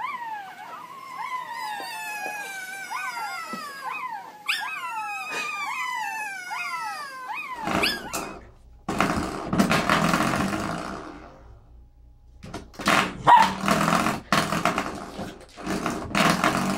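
A litter of newborn golden retriever puppies whimpering and squealing, many high cries overlapping and falling in pitch. About seven and a half seconds in, this gives way to a young golden retriever puppy growling in rough bouts.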